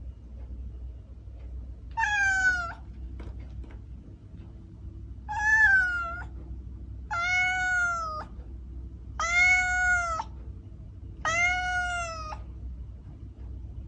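A domestic cat meowing five times, each meow under a second long and a couple of seconds apart, its pitch arching and bending down at the end.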